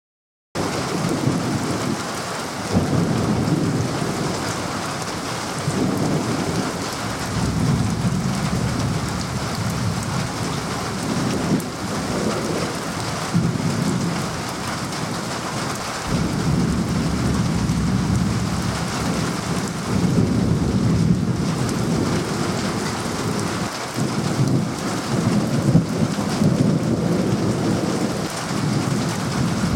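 Thunderstorm: steady rain with rolling thunder rumbling again and again. The sound cuts in suddenly about half a second in, after silence.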